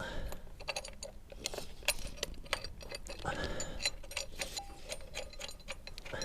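Small metal parts clicking and clinking in irregular taps, a bolt and spacers being handled while an exhaust bracket is fitted, with a couple of brief ringing pings.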